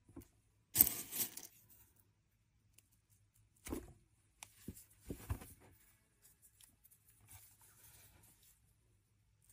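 In-shell sunflower seeds handled by hand and pushed into a raw potato: short dry crackling rustles. The loudest comes about a second in, shorter ones follow near four and five seconds, then fainter rustling.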